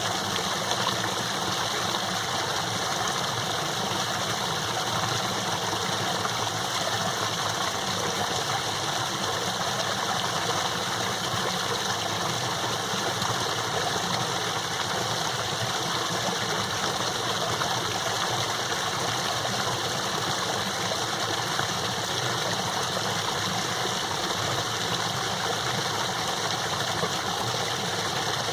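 Small waterfall running strong with snowmelt, a steady, even rush of falling water.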